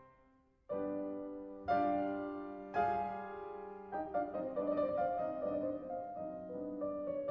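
Piano music. After a brief pause, chords are struck about once a second, then a quicker run of notes follows.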